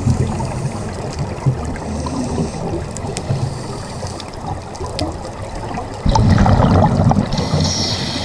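Scuba breathing through a regulator, recorded underwater: a loud gush of exhaled bubbles about six seconds in and the regulator's hissing inhale near the end, over a steady underwater wash.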